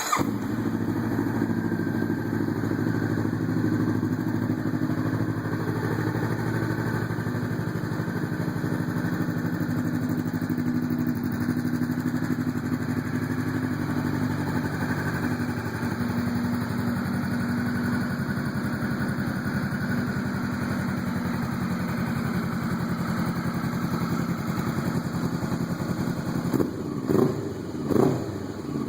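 Honda CB500F parallel-twin engine breathing through a Yoshimura R-77 carbon-fibre slip-on exhaust. It fires up and idles steadily, then is blipped sharply two or three times near the end.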